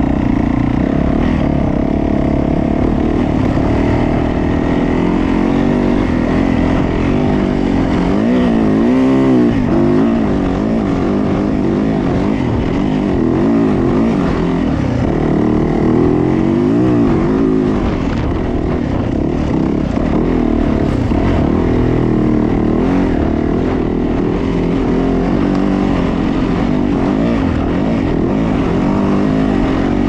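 2020 Yamaha YZ450F dirt bike's single-cylinder four-stroke engine running hard while ridden, its note rising and falling again and again as the throttle is worked.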